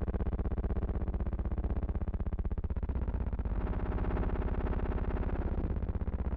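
A loud, steady, distorted buzzing drone with many pulsing overtones, whose tone shifts about three and a half seconds in. It is noise on the archival film's soundtrack, not sound from the scene.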